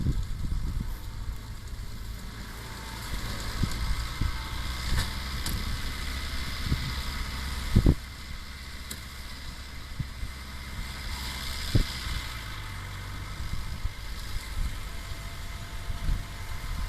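International Harvester 766 tractor running steadily while pulling a hay baler, with the baler's mechanical clatter above the engine. A few sharp thumps stand out, the loudest about eight and twelve seconds in.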